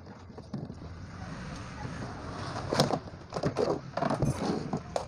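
Wooden back panel of an active speaker cabinet being worked loose and pulled off by hand: scraping with a run of irregular knocks and clicks of board against the cabinet, the sharpest about three seconds in.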